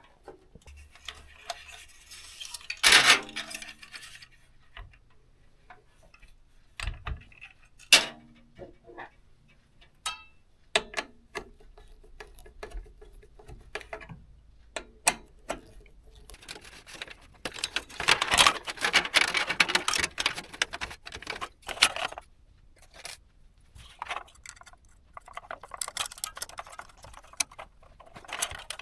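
Handling noise from assembling a desktop PC: scattered small clicks and clinks of plastic and metal parts, with stretches of rustling, loudest about 3 s in and again from about 18 to 22 s.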